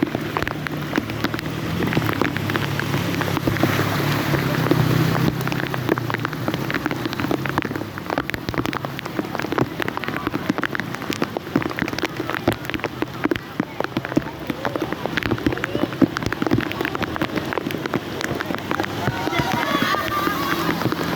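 Heavy rain falling steadily on a surface, with many separate drop hits. A low hum sits under it for the first few seconds, and voices come in faintly near the end.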